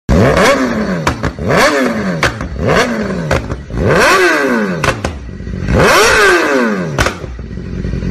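BMW S1000RR inline-four with an aftermarket slip-on exhaust being revved at a standstill: about five sharp throttle blips, each pitch climbing and then falling back, with pops and crackles from the exhaust as the revs drop. It settles back toward idle near the end.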